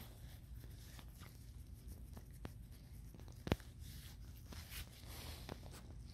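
Faint, irregular soft crackles and ticks in falling snow, with one sharper click about halfway through, over a low steady hum.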